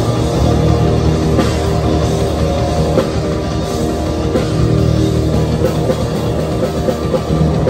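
Rock band playing live, with electric guitars, bass guitar and drum kit.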